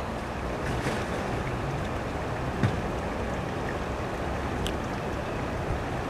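Steady wind noise buffeting the microphone, with a few faint short sounds scattered through it.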